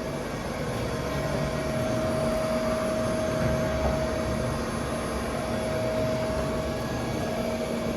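Wagner CNC machining centre running: a steady mechanical hum with a constant whine over it.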